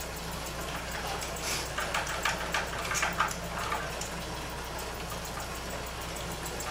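Steady background hiss, with a cluster of short crackling handling noises lasting about two seconds in the first half.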